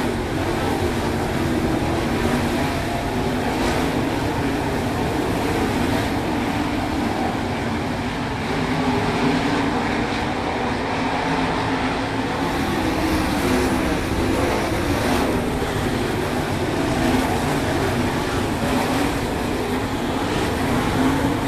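A field of 410 sprint cars racing on a dirt oval, their 410-cubic-inch V8 engines running loud and steady, with the pitch rising and falling as the cars come past and work through the turns.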